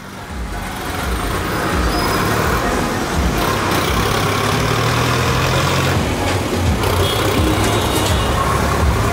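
City street traffic noise: the steady rumble of passing cars and motor scooters, fading in over the first two seconds.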